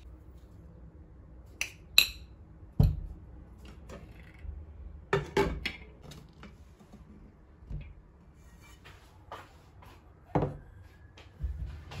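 Handling of glass kitchenware: a handful of separate clinks, taps and knocks, one with a short ringing ping about two seconds in, as a glass jar and a glass pan lid are set down on the hob and worktop.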